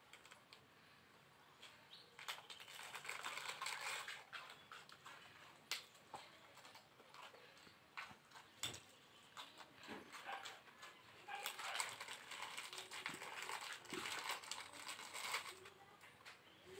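Faint crunching and crackling of a dog chewing biscuits, in two spells of several seconds each.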